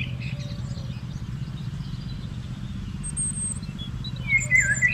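Small birds chirping over a steady low hum: a couple of short calls just after the start and a quick run of chirps near the end.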